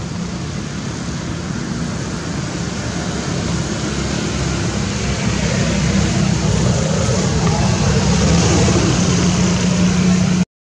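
Road traffic noise: a steady rumble and hiss that grows slowly louder, with a low engine hum near the end. It cuts out abruptly right at the end.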